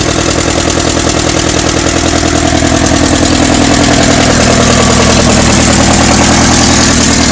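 Allis-Chalmers B tractor's four-cylinder engine running steadily at idle with an even pulsing beat, growing louder about three seconds in.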